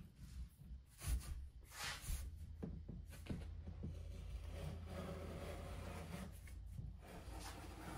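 Block plane shaving the edge of a wooden board to cut a small chamfer: short rasping strokes of the blade along the wood, the sharpest about one and two seconds in, with a low steady hum underneath through the middle.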